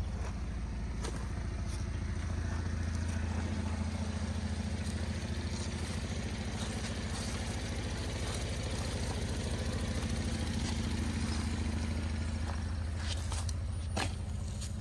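2011 Cadillac SRX's 3.0-litre V6 engine idling steadily.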